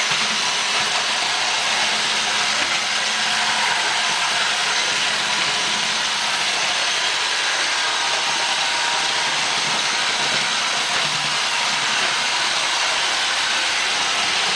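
Roomba robot vacuum running, a steady even noise from its vacuum motor and brushes.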